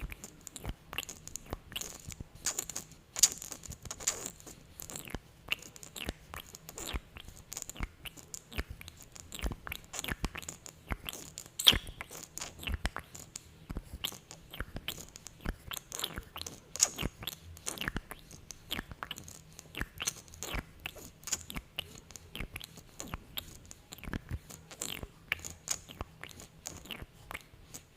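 Sticky lip-gloss mouth sounds close to the microphone: a dense, irregular stream of wet clicks and smacks as glossed lips part and press together.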